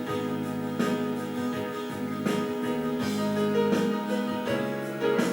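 Instrumental closing bars of a song: sustained chords with a light, regular beat and no singing.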